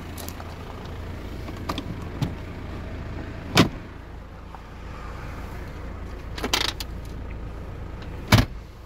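Clicks and knocks of hard plastic car interior trim being handled, including the centre-console armrest compartment opened by hand near the end, over a steady low rumble. There are about five sharp knocks; the loudest come about three and a half seconds in and near the end.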